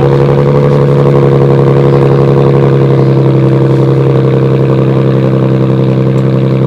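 Infiniti G37's 3.7-litre V6 running at a steady, held engine speed, a loud even drone with a constant pitch.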